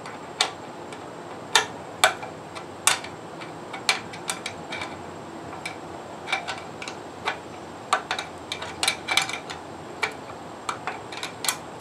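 Hand wrench tightening a half-inch nut on a pump housing: irregular sharp metal clicks as the wrench is worked and repositioned on the nut, a few seconds apart at first and in a quick cluster about eight seconds in.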